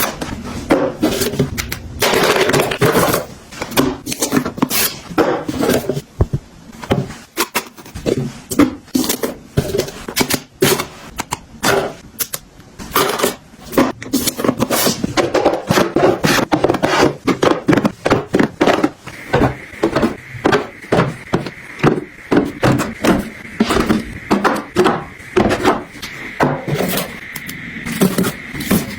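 A rapid series of light knocks, taps and scrapes of hard objects being handled and set down. The taps come quicker and more evenly in the second half, and a faint steady high tone joins about two-thirds of the way through.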